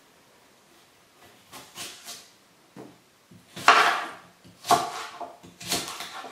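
Knife cutting apple on a cutting board: a few soft cuts, then three loud chops about a second apart as the blade strikes the board.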